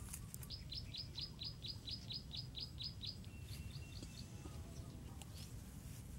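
A bird singing: a fast run of about a dozen short, high notes, each dropping in pitch, about five a second. A softer run of four notes follows, over a low steady rumble.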